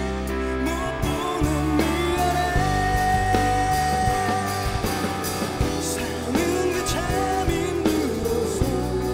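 A band playing live with a man singing over it, the voice bending between notes and holding one long note for about two seconds partway through, over a steady bass and guitar accompaniment.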